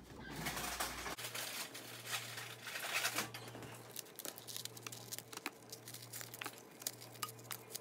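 Plastic Oreo packaging crinkling and rustling as more cookies are taken out, with scattered small clicks, busiest in the first few seconds.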